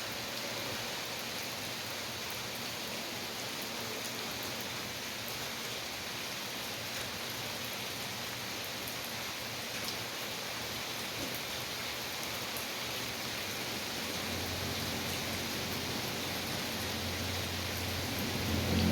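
Steady rain falling, an even hiss of many drops. A low rumble builds in over the last few seconds.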